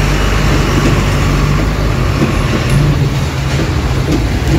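Truck engine running steadily, with road traffic noise.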